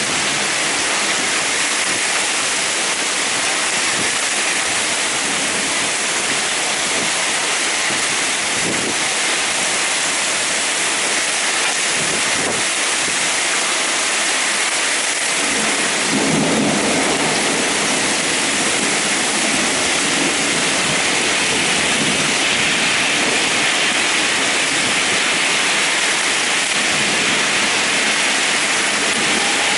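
Heavy thunderstorm rain pouring down in a steady, dense hiss. A deeper rumble swells briefly about halfway through.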